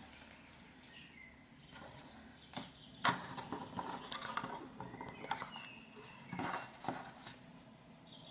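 Quiet handling noises of hands working a cold porcelain rose bud and a thin clay petal over a tabletop: soft rustles and a few small taps. The sharpest tap comes about three seconds in, and a cluster follows near the end.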